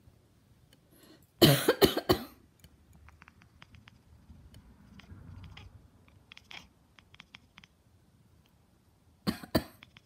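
A person coughing: a short fit of several coughs about a second and a half in, then two more coughs near the end.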